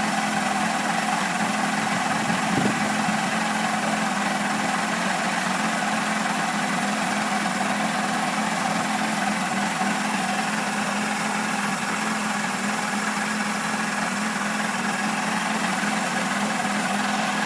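1990 Mercury 100hp 2+2 two-stroke outboard running steadily out of gear. The owner suspects a fuel or timing fault behind its rough idle and running.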